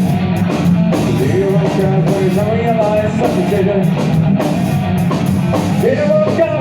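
Nu metal band playing an instrumental passage: distorted electric guitars over drums, loud and steady.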